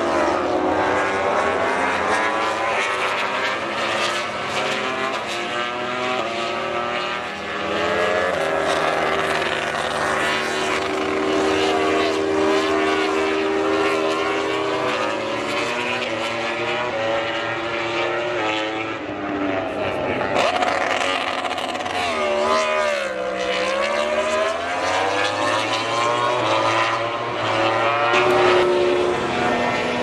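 Yamaha YZR-M1 MotoGP race bikes' crossplane inline-four engines revving up and down at close range, their pitch rising and falling with the throttle. About three-quarters of the way through, one engine's pitch drops sharply and climbs back again.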